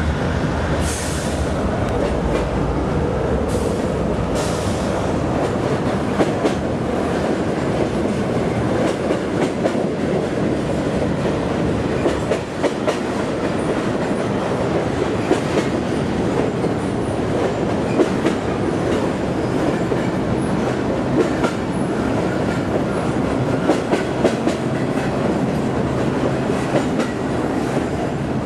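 Freight train rolling past, its wheels clicking steadily over the rail joints. There is a brief high-pitched hiss or squeal twice in the first few seconds.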